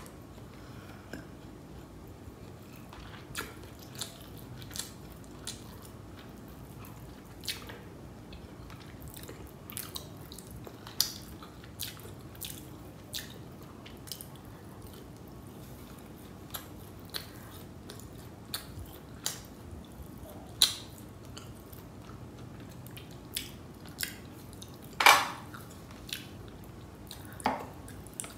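Close-miked chewing and wet mouth sounds of a person eating biryani rice and chicken masala by hand: scattered irregular clicks and smacks, one louder smack about three-quarters of the way through.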